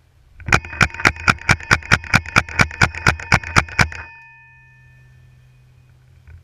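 Paintball marker firing a rapid string of about sixteen shots, roughly five a second, for about three seconds, with a ringing tone that lingers and fades after the last shot.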